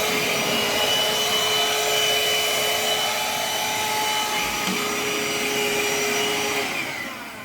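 Parkside PHSSA 20-Li C1 cordless 20 V handheld vacuum cleaner running: a steady motor hum and air rush. Near the end it is switched off and the motor spins down.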